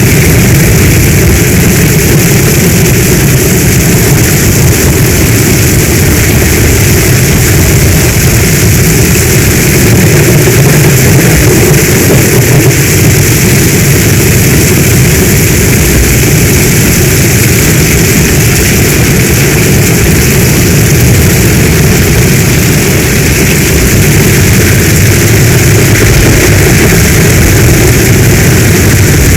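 Heavy storm rain falling steadily: a dense, even hiss with a low rumble beneath it, unchanging throughout.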